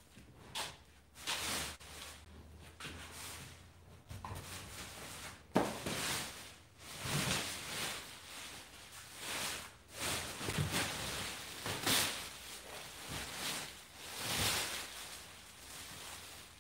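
Plastic wrapping and cardboard packing rustling and crinkling in repeated irregular bursts as they are pulled out of a bike's shipping box, with a sharp knock about five and a half seconds in.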